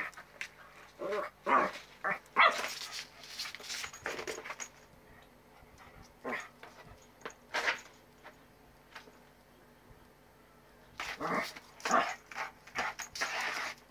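A puppy barking in short, sharp bursts, with a quiet spell of several seconds midway and a busy run of barks near the end.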